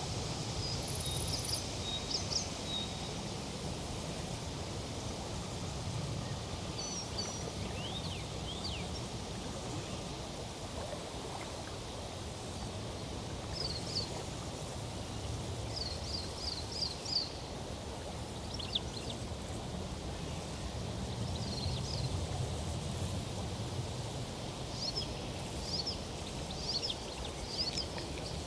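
Steady riverside ambience: a continuous rushing, rustling noise of breeze in foliage and flowing water, swelling and easing slightly. Small birds chirp in short quick runs of high notes scattered throughout.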